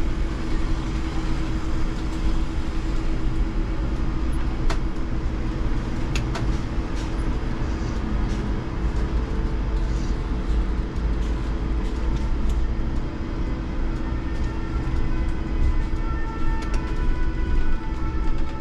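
IMC Hess lighTram 19 DC trolleybus heard from the driver's cab while under way: a steady electric drive hum over a continuous low road rumble, with a few sharp clicks near the start. Thin, higher whining tones join in over the last few seconds.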